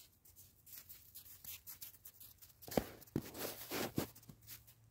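Snow crunching under footsteps and paws: scattered soft crunches, with a louder run of them about three to four seconds in.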